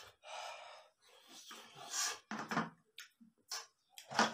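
A man breathing hard and hissing through an open mouth from the chili burn of spicy ramen, in short breathy puffs with a few mouth clicks. Near the end comes a short knock as a metal wok is lifted off the table.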